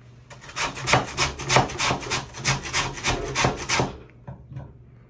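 A piece of watermelon grated on a stainless steel box grater standing on a wooden cutting board: quick rasping strokes, about four or five a second, that stop a little before four seconds in.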